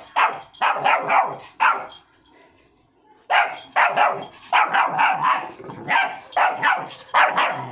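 Rottweiler puppy barking at an empty paint bucket in quick repeated barks, pausing about two seconds in, then barking again in a long run.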